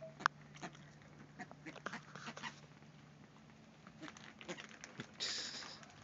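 A wood stork and white ibises feeding on popcorn on the ground: scattered soft clicks and snaps of bills pecking, with a short hiss about five seconds in.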